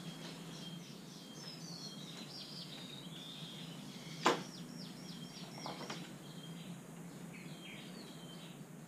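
Birds chirping in short repeated high notes throughout, with one sharp knock about four seconds in and a quick run of ticking notes soon after.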